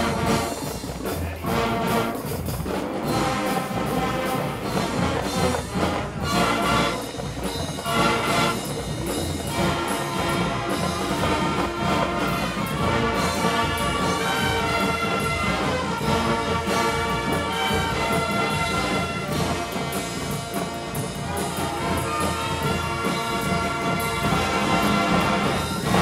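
A college marching band playing: brass section with trumpets and trombones over drums and front-ensemble percussion, loud and full throughout.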